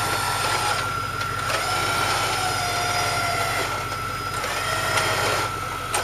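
Electric winch motor whining steadily as it pulls on a taut cable, with a vehicle engine running low underneath.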